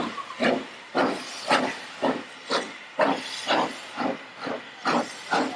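Steam locomotive chuffing in a steady rhythm of about two exhaust beats a second, with steam hissing between the beats as it works the train along the platform.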